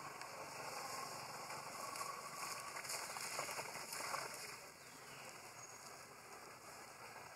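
Water splashing as long-tailed macaques play in a shallow pond. The splashing is loudest about three to four seconds in, as one monkey leaps into the water.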